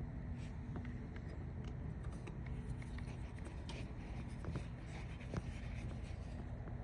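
Light scratching and scattered small clicks over a steady low hum: close handling noise.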